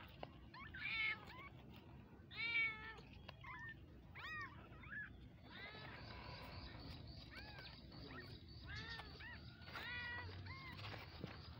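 Newborn kittens, eyes still closed, mewing: a string of short, high-pitched mews, each rising and falling in pitch, the loudest about a second in and again at two and a half seconds.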